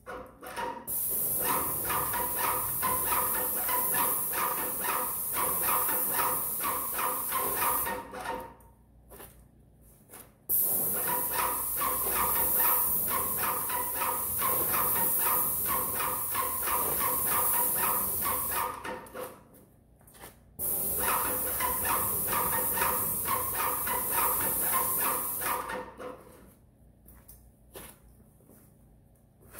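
Paint spray gun spraying trim boards in three long passes of several seconds each: a steady hiss over the fast, even pulsing of the sprayer's pump, cutting off between passes when the trigger is released.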